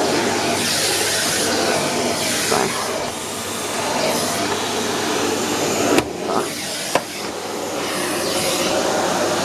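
Henry HVR 160-11 620-watt bagged cylinder vacuum cleaner running steadily, with two sharp clicks about six and seven seconds in.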